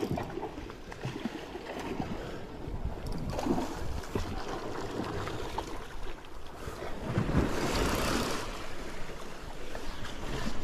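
Sea waves washing against shore rocks, with one larger surge about seven seconds in, over wind buffeting the microphone.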